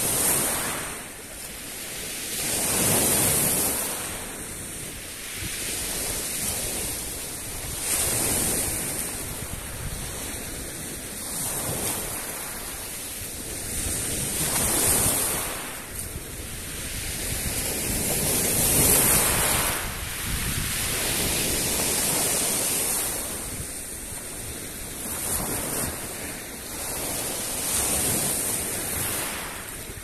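Small Black Sea waves breaking and washing in at the shoreline, the surf swelling and falling back every few seconds.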